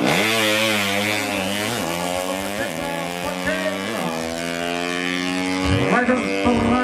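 Tuned 130cc underbone drag bike launching hard off the line and accelerating away. The engine note jumps up at the launch and drops back at each gear change, three shifts within the first four seconds or so, then holds high and steady.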